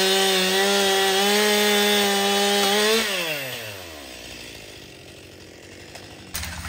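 Stihl two-stroke gasoline chainsaw running at high revs, then the throttle is let off about three seconds in and the engine note falls away.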